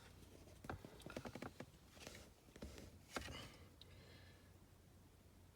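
Faint scattered clicks and short rustles of small objects being handled, dying away to near silence after about three and a half seconds.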